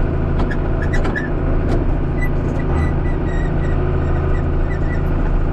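Engine of heavy farm equipment running steadily, with a few sharp knocks in the first couple of seconds and a faint high squeak repeating after that.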